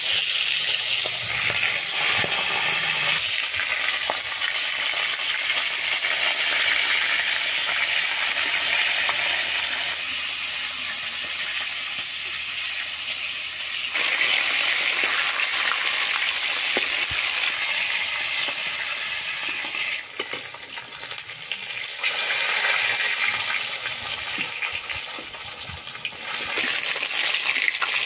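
Pieces of fish sizzling as they deep-fry in hot oil in an iron kadai, a steady crackling hiss that swells and softens in stretches. A steel spatula clicks and scrapes now and then as the pieces are turned.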